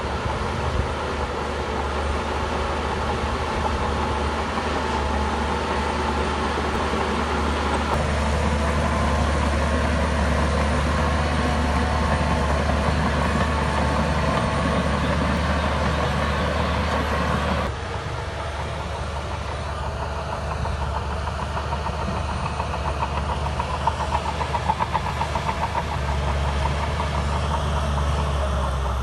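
Shantui bulldozer's diesel engine running steadily under work. The sound changes abruptly about two-thirds of the way through, and a few seconds later there is a burst of rapid rattling.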